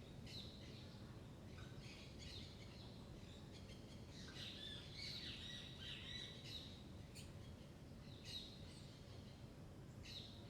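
Faint birds chirping intermittently, with short high calls clustering about halfway through, over a low steady background hiss.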